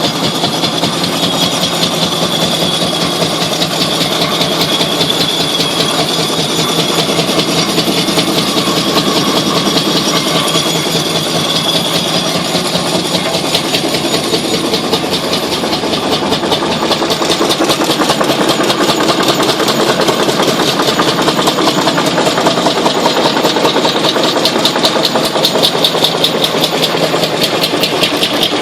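Old sawmill machinery driven by a Strömberg electric motor, running steadily with a fast, even mechanical clatter and a faint high whine that fades out about halfway through.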